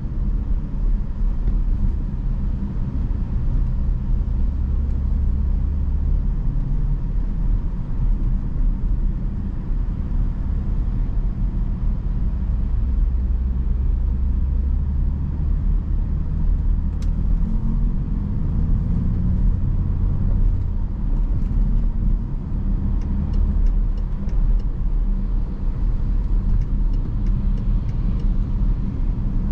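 BMW X5 on the move in traffic: a steady low engine and road rumble whose pitch steps up and down a few times as the speed changes. Faint light ticks come in the last few seconds.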